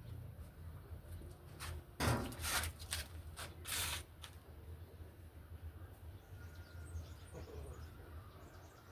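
A few short knocks and scraping or rustling noises over a low steady hum, with faint bird chirps in the last couple of seconds.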